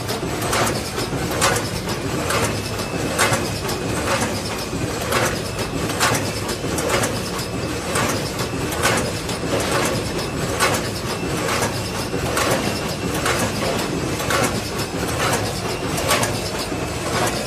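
Automatic snack packing machine with a combination weigher running: a steady mechanical din with a sharp clack repeating about once a second, the rhythm of the packing cycle.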